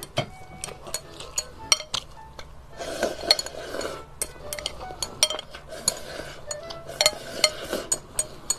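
Chopsticks clicking rapidly against a glass bowl as rice is shoveled from the rim into the mouth, with short stretches of noisy eating about three seconds in and again a little later. Faint background music underneath.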